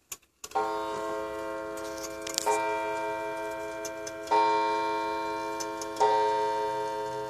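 Antique French mantel clock striking the hour on its coiled wire gong: four strokes just under two seconds apart, each ringing on and fading into the next. The movement's ticking runs faintly underneath.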